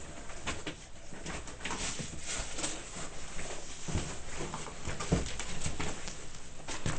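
Scattered light clicks, knocks and rustling of small gear being handled in a plastic box and toolbox.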